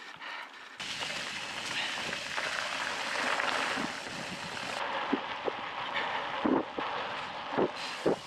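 Mountain bike tyres rolling fast over gravel, with rushing wind on the camera's microphone, as the bike coasts downhill; the noise jumps sharply louder about a second in. Several short knocks come in the second half as the bike jolts over bumps.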